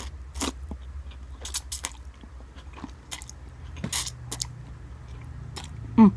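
Slurping and chewing of instant cup noodles, with a string of wet mouth clicks and smacks and two longer slurps, one at the start and one about four seconds in. Near the end comes a short, loud mouth or throat sound whose pitch falls.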